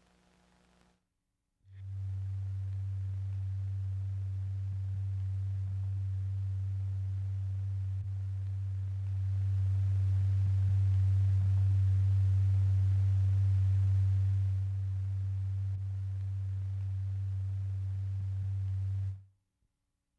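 A low, steady pure tone, the note driving a stretched membrane strewn with Lycopodium powder. It starts about two seconds in and grows louder for about five seconds in the middle, the higher amplitude that whips the powder into a dust cloud, then cuts off near the end.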